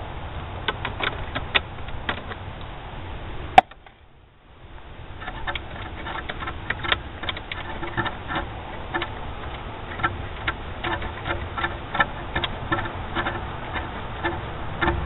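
Socket ratchet clicking in short runs, a few clicks a second, as it snugs down the mounting screws of an idle air control valve. A single sharp knock comes about three and a half seconds in.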